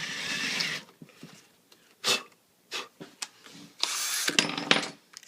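A drill boring briefly into particle board to recess a screw hole, in short bursts with clicks between them. The longest burst lasts about a second, near the end.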